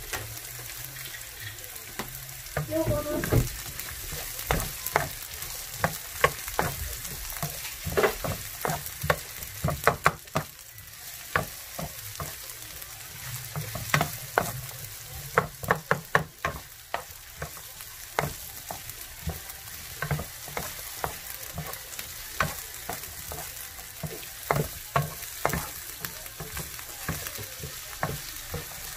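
Sliced onions and minced garlic sizzling in hot oil in a non-stick frying pan, with a wooden spatula scraping and knocking against the pan at irregular intervals as they are stirred.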